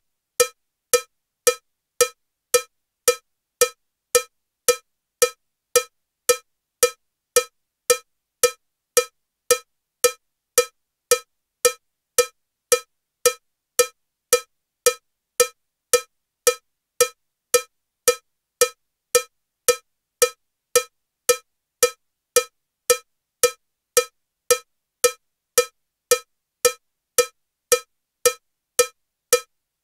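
Metronome with a cowbell sound ticking steadily at 112 beats per minute: short, bright cowbell strikes just under two a second, evenly spaced and equally loud.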